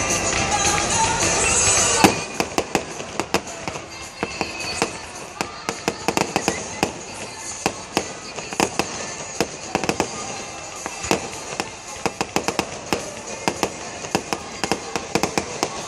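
Aerial fireworks: a loud bang about two seconds in, then a dense, irregular run of sharp crackling pops, several a second, as the shells burst into falling white sparks.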